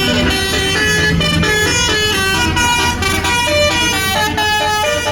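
Indonesian tour bus 'telolet' multi-tone air horn playing a quick melody of changing notes, with the bus engine running underneath.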